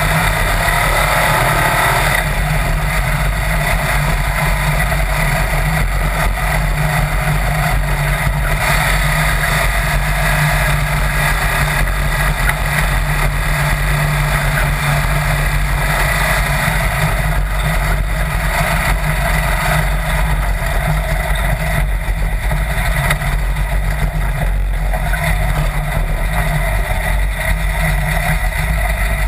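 Sand rail dune buggy's engine running steadily under way at speed, with wind rushing over the open cage and the microphone.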